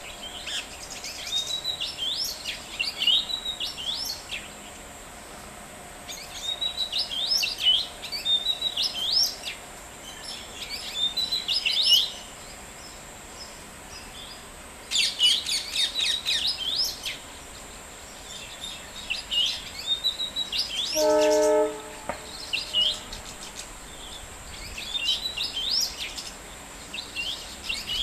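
Small birds chirping and twittering in repeated bouts of quick, high notes, over a steady thin high tone. About three-quarters of the way through, one loud, steady horn-like tone lasts about a second.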